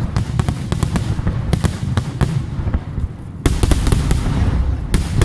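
Fireworks display: a continuous low rumble of aerial shell bursts laced with many sharp cracks and crackles, easing briefly near three seconds in and then coming back denser and louder.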